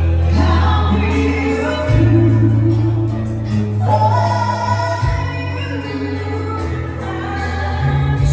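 Live band playing a song with a woman singing over it, the low bass notes held and changing every couple of seconds.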